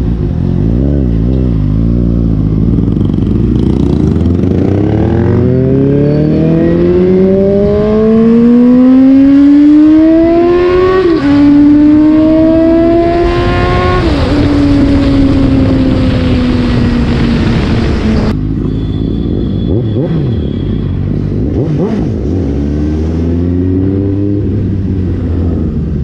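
Suzuki GSX-S750's inline-four engine accelerating hard: the note climbs steadily, drops at one upshift about eleven seconds in, and climbs again, with a rush of wind noise at speed. Then the throttle closes and the note falls slowly as the bike slows, ending in low-speed running with a few short throttle blips.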